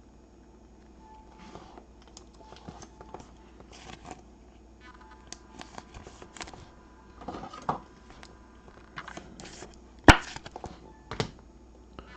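Trading cards being handled: scattered soft rustles and light clicks of cards and packaging, with one sharper click about ten seconds in.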